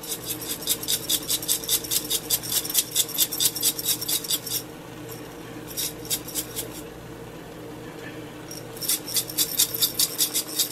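Hand-twisted seasoning grinder clicking rapidly as it grinds, about seven clicks a second. There is a long run of several seconds, a short one around the middle and another starting near the end, over a steady low hum.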